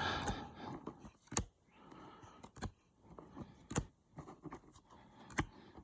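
Baseball trading cards being handled and flipped through by hand: faint rustling of card stock, with about four sharp little snaps as cards are flicked past one another.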